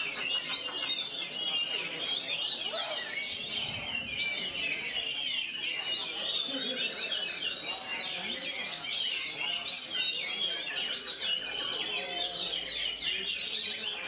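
Oriental magpie-robin singing a fast, unbroken run of varied chirps and whistles with only very short pauses between phrases.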